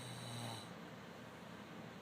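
Snoring: a low, rattling snore that ends about half a second in.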